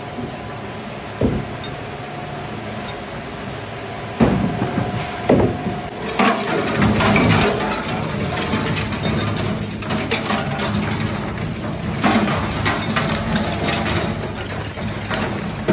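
Twin-shaft scrap metal shredder running, with a few sharp metallic knocks at first. About six seconds in, it starts crunching lathe turnings (metal shavings) between its cutter discs: a dense, steady crackling and clattering.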